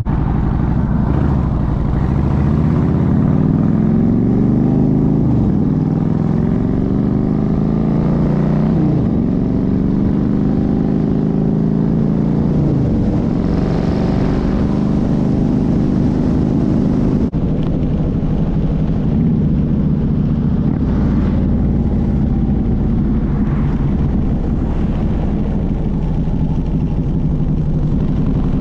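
Harley-Davidson Ultra touring motorcycle's V-twin engine under way on the road. The revs rise and drop back several times as it shifts up through the gears, then it runs at a steady cruise.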